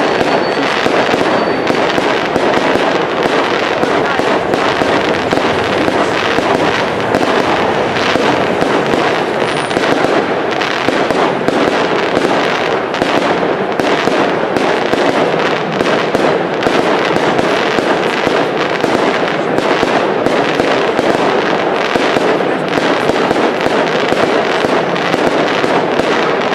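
Aerial fireworks display: a dense, unbroken crackling and popping of many small bursts, with no single loud bang standing out.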